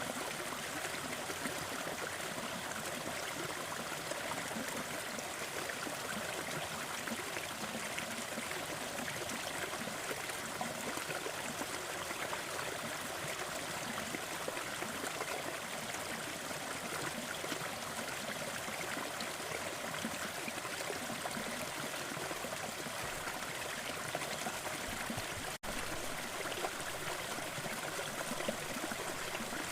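Small forest waterfall splashing and rushing steadily, with a split-second dropout near the end.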